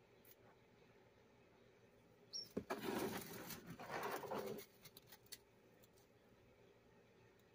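Dry leaf bedding rustling and crackling for about two seconds as a brood of day-old chicks stirs and shuffles about, just after a single short high peep.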